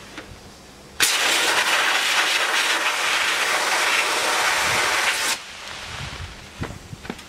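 Compressed-air sandblasting gun blasting abrasive onto a Derbi moped frame: a loud hiss starts abruptly about a second in and cuts off after about four seconds. A few light knocks follow near the end.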